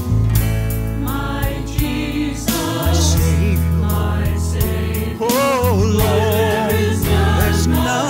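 Piano accompaniment under a small group of voices singing a gospel-style church song, with steady bass notes beneath; the voices, with a marked vibrato, come forward about five seconds in.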